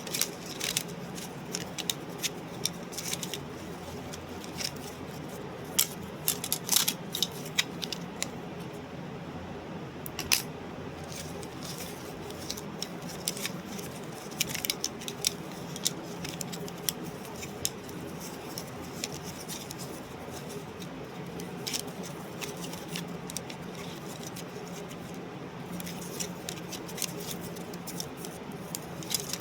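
Scattered small sharp clicks and light rattles, in irregular clusters, over a steady low hum.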